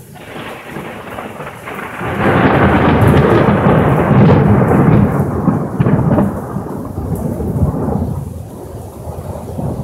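Loud thunder after a lightning strike: the rumble builds for about two seconds, stays at full strength for about four, then rolls on unevenly and fades.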